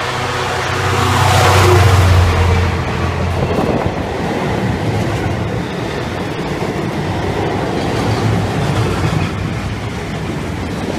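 A British Rail Class 66 diesel locomotive passes close by, its EMD two-stroke V12 engine running with a heavy low note that is loudest about two seconds in. After about three and a half seconds the engine note gives way to the steady rolling noise of the steel-coil freight wagons running past on the rails.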